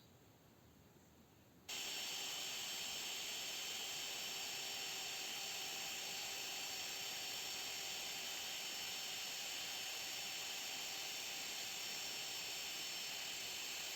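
Electric router on a home-made flattening sled running at a steady speed, a hissing whine with a few faint steady tones. It cuts in abruptly about two seconds in, after near silence, and stops abruptly near the end.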